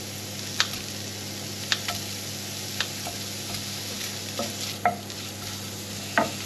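Sausage chunks sizzling steadily in oil in a frying pan. There are sharp snips about once a second early on as kitchen scissors cut pieces into the pan, then a few knocks of a wooden spoon against the pan as the chunks are stirred.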